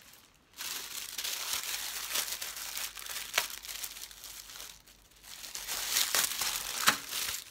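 Plastic packaging crinkling and crackling as it is handled and pulled open, starting about half a second in, easing briefly past the middle and then picking up again.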